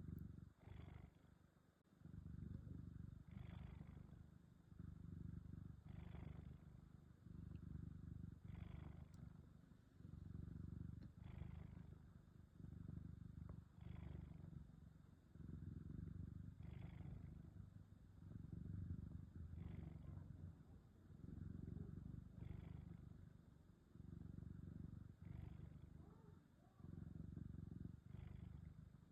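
A napping cat snoring softly: a low rumble repeating in steady breaths about every two and a half to three seconds, with a short breathy hiss at each break between them.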